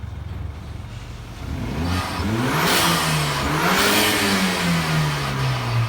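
BMW F30 3 Series engine accelerating hard in sport mode: the revs climb, dip briefly at a gear change about three and a half seconds in, climb again, then fall slowly as the car comes off the throttle.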